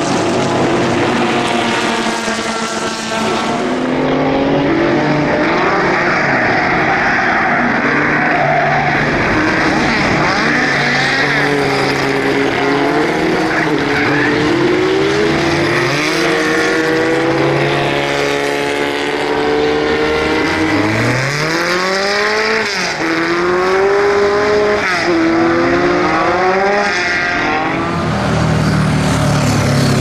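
Historic racing cars' engines at full throttle passing one after another, their pitch rising and falling with revs and gear changes.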